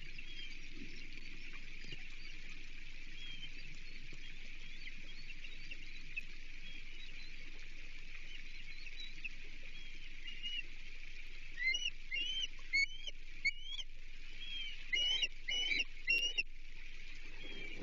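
Ospreys calling in steady rain: faint, scattered whistled chirps over an even rain hiss. About twelve seconds in comes a run of four louder, sharp upslurred whistles, then three more a few seconds later.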